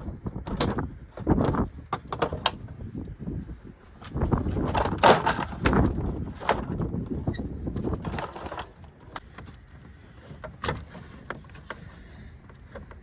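Sharp plastic clicks and knocks from working a power window switch out of a truck's door panel, its clips snapping and scraping, with a few denser bursts of rattling, over low wind rumble on the microphone.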